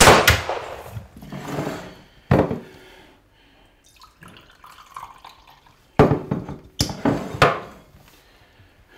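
Water splashing in a sink in separate sudden splashes: a pair at the start, one a little after two seconds, then three in quick succession from about six seconds in, with a quieter gap between.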